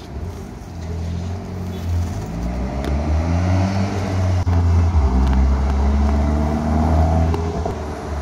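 Volkswagen Golf R32's VR6 engine and exhaust accelerating hard. The engine note climbs in pitch, drops back at each gear change, and grows louder as the car comes past.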